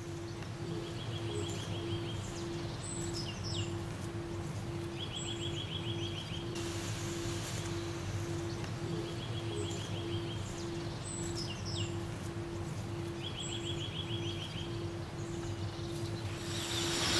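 Background soundtrack: a steady, evenly pulsing low tone over a low hum, with a short trilled chirp and a few bird-like whistles that repeat identically about every four seconds, like a loop.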